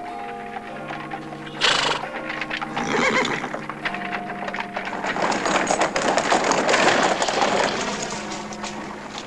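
Orchestral film score with a horse whinnying and hooves clip-clopping. A sudden loud sound comes about a second and a half in, and a dense clatter swells in the second half before fading near the end.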